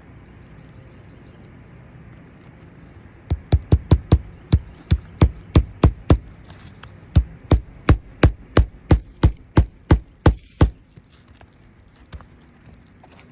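Hammer driving roofing nails through asphalt ridge shingles: two runs of sharp blows, about three a second, with a pause of about a second between them.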